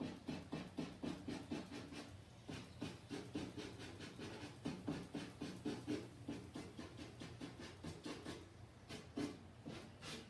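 Quick, rhythmic back-and-forth strokes of a drawing tool on a stretched canvas, about five a second, as lines are hatched in, with a short pause about two seconds in.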